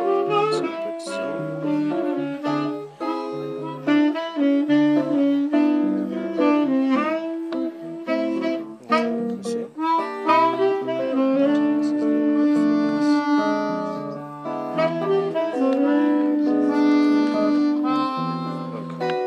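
Live bossa nova trio: a held, flowing melody on tenor saxophone and harmonica over chords on a Gibson ES-335 semi-hollow electric guitar.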